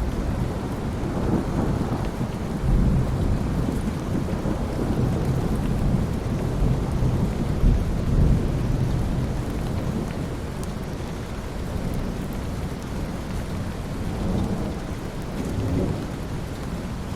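Thunderstorm: steady rain with long low rumbles of thunder rolling through, the loudest in the first half and a weaker one near the end.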